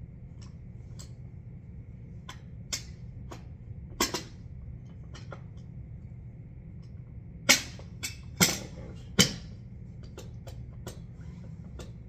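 Scattered sharp clicks and taps over a steady low hum. The loudest click is about four seconds in, and three more strong ones come close together near the middle to end.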